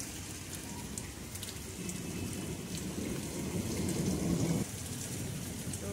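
Heavy rain falling steadily on potted plants and a concrete terrace, with the pattering of drops. A louder low noise swells in the middle and cuts off suddenly about four and a half seconds in.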